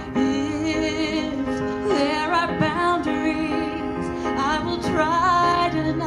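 A woman sings a slow, tender song into a microphone over soft, steady backing music, holding long notes with vibrato.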